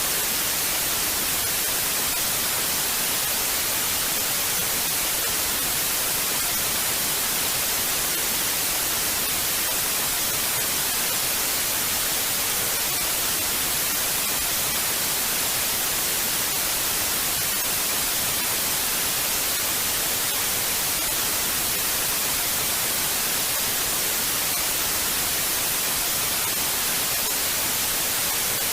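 Television static: a steady, even hiss of white noise, strongest in the high end, with no changes.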